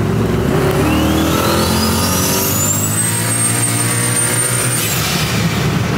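Turbocharged 408 stroker V8 with a bed-mounted turbo accelerating hard, heard from inside the cab. The turbo whistle rises in pitch for about two seconds, holds high, then drops away suddenly about five seconds in.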